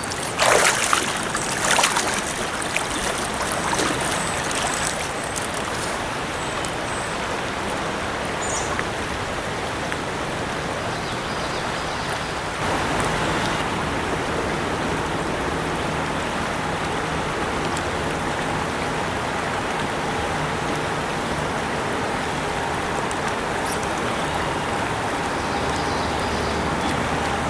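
Shallow river water running steadily over a riffle. There are a few brief louder sounds in the first two seconds, and the water grows slightly louder about halfway through.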